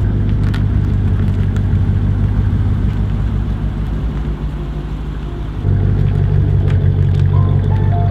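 Lexus RC F's 5.0-litre V8 running with a deep, steady low note, getting noticeably louder about two-thirds of the way through.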